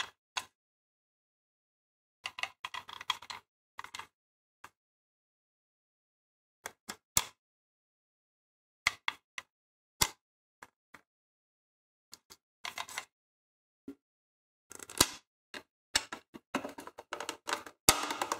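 Handling noise from plastic signal-lantern housings: irregular sharp clicks and taps with short scraping rubs as the parts are turned over and fitted together, with pauses between, busiest near the end.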